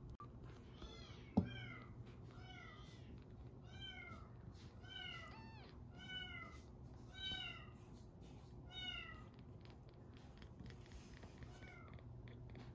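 A newborn kitten mewing over and over, a string of short, high calls that slide down in pitch, roughly one a second. A single sharp knock about a second and a half in.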